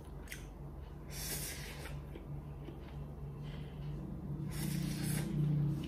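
A person slurping stir-fried instant noodles off chopsticks, twice: once about a second in and again near the end.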